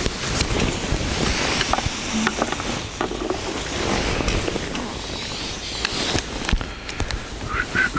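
Campfire crackling in scattered sharp pops, over a low wind rumble on the microphone. Near the end, whistling begins.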